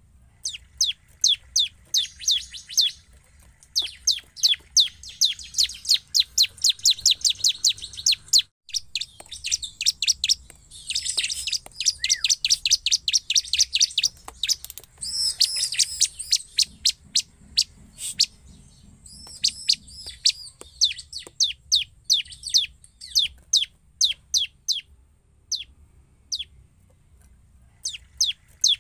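A bar-winged prinia (ciblek) in full, persistent song. It gives a fast run of sharp, downward-sweeping chips, several a second, which thicken into denser buzzy trills in the middle.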